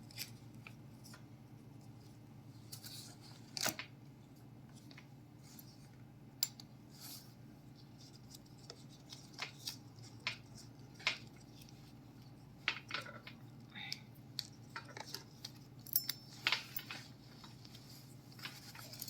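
Scissors snipping and packaging being cut and torn open: scattered short snips and crackles, irregularly spaced, over a steady low hum.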